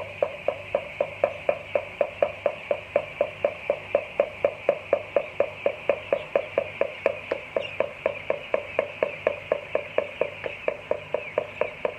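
A steady rhythmic knocking, about four to five knocks a second, over a dense chorus of chicks peeping in the brooder house.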